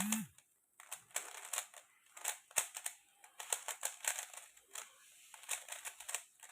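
Plastic speed cube being turned quickly by hand: a rapid, irregular run of clicks and clacks as the layers snap round. This is a turning sound that its owner finds not so good.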